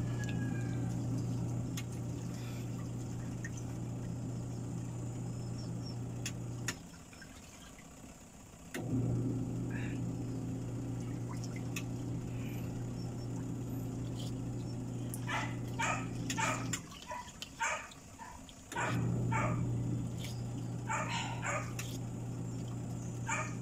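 A dog barking in two short runs of several barks each, past the middle and near the end, over a steady low machine hum that cuts out twice for a couple of seconds.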